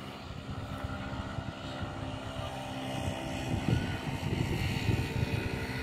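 A steady engine hum with wind buffeting the microphone, the gusts growing stronger about halfway through.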